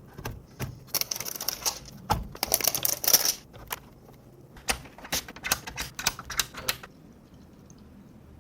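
Rapid, irregular sharp clicks and taps of computer hardware being handled and fitted together, stopping about seven seconds in.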